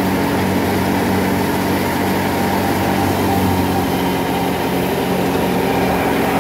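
Wheat thresher running steadily while it threshes: a loud, constant mechanical drone with a steady low hum under it.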